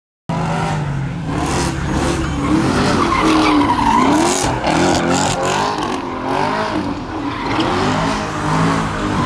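A car doing donuts: the engine is held at high revs, its pitch wavering up and down with the throttle, over the continuous screech of spinning tyres skidding on pavement.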